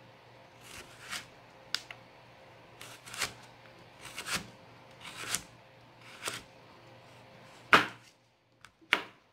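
Chef's knife slicing a carrot into thin strips on a plastic chopping board: a series of separate short knocks as the blade cuts through and meets the board, irregularly spaced about one a second, the loudest near the end.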